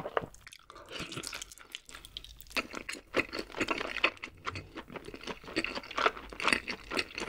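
Close-miked chewing of a mouthful of fried chicken, with crisp crunching crackles. It goes quieter for the first couple of seconds, then the crunching turns dense about two and a half seconds in.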